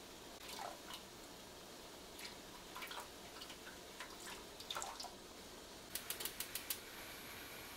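Wooden spatula scraping and swishing through a simmering soy-sugar syrup in an aluminium pan while potato-starch slurry is poured in to thicken it into mitarashi sauce. About six seconds in comes a quick run of about six light taps.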